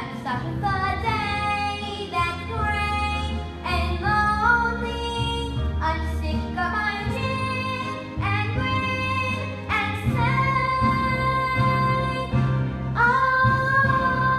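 A young girl singing a solo song from the musical over an instrumental accompaniment, holding long notes in the second half.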